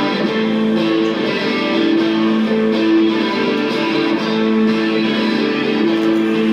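A live rock band plays, with the electric guitar to the fore. Its held notes change pitch about once a second.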